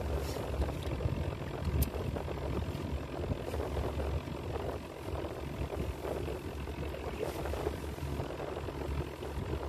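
Steady low rumble of wind buffeting the microphone, mixed with choppy water splashing against a small john boat's hull as it moves along, with a couple of sharp knocks near the start.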